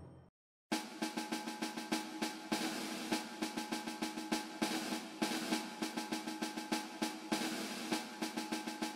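Background music driven by quick, even drum beats over held tones, about four or five hits a second, starting after a brief silence less than a second in.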